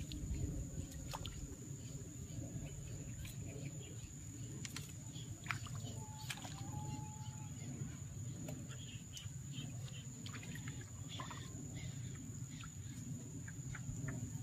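Outdoor ambience: a steady low rumble with scattered small clicks and taps and a thin, steady high-pitched whine throughout.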